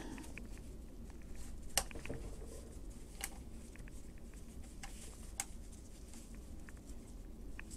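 Faint handling clicks and light metal taps as a hex key is worked into its spring holder clip on a jigsaw's steel base, with a few sharper clicks among them.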